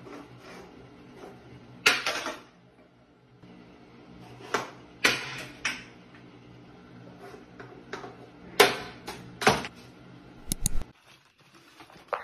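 Small objects knocking and tapping on a tiled toilet-cistern ledge as a cat paws at them. About half a dozen sharp, irregular knocks ring in a small tiled room over a faint steady hum.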